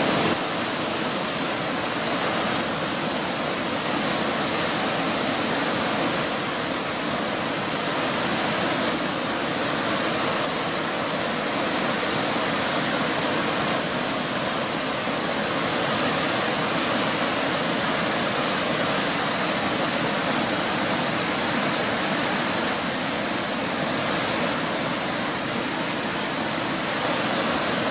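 Waterfall rushing in a steady, even roar of falling water, running high and hard with rain and wet snow.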